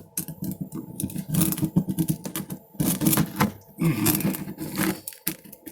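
Hand tools working at a boat's port window frame: irregular rapid clicking and scraping.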